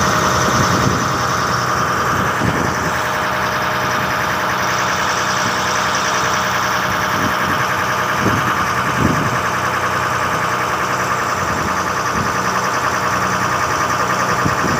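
Boat engine running with a steady drone, under the rush of water churning along the hull, with a few brief swells of splashing.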